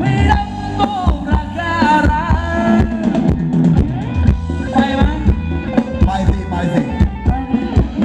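Live Thai ram wong dance band playing: a singer's wavering melody over a drum kit keeping a steady beat with a heavy bass line.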